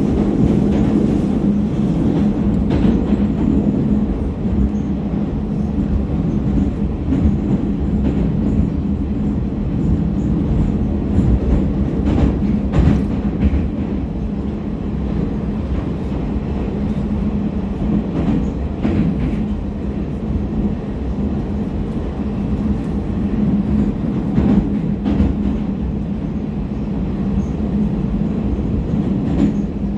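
Interior of an 81-726.1 "Baltiets" metro car running at speed through the tunnel: a steady rumble of wheels on rails and running gear with a constant low hum, and occasional light clicks.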